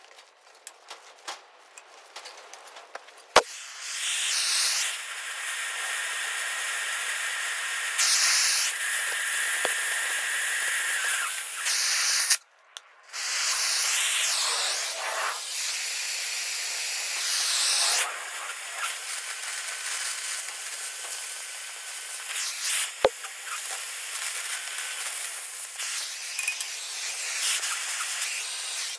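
Oxy-propane cutting torch lit with a sharp pop about three seconds in, then a steady hissing flame as it heats and cuts through the thick steel plate. Near the middle the flame goes out with a pop and the hiss stops for about a second before the torch is relit.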